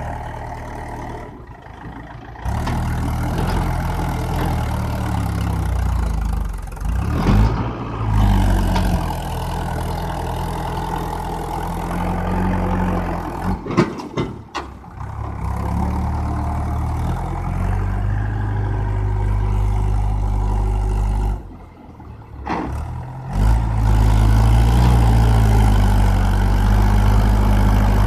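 Mahindra 575 DI tractor's four-cylinder diesel engine labouring under load as it tries to drag an overloaded trolley through sand, with wheel lift at the front. The engine note drops away four times and comes back louder each time, loudest near the end.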